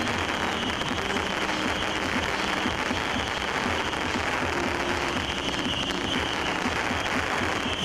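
Fireworks going off in a dense, continuous crackle of many small pops.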